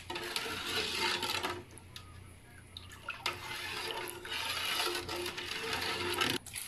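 Metal ladle stirring watery masala with potatoes and peas in a large aluminium pot, the liquid sloshing and swirling; it not yet at the boil. Two spells of stirring with a quieter pause of about a second and a half between them.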